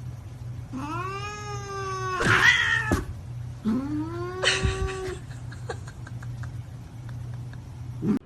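A cat yowling: two long drawn-out calls, the first ending louder and harsher about two and a half seconds in, the second starting about a second later. A steady low hum lies beneath.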